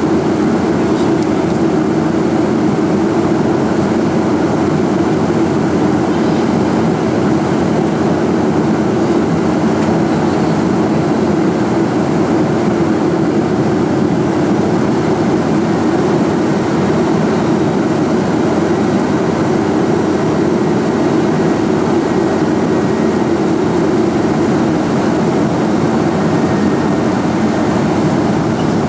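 Steady cabin noise inside a Boeing 747 airliner in flight: an even rush of airflow and engine drone, heaviest in the low range.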